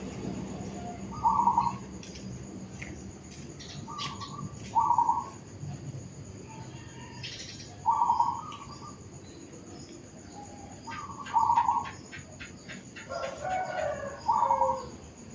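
Zebra dove (perkutut) cooing: short, mellow notes in groups of two or three repeated every few seconds, with fainter chirps of small birds behind.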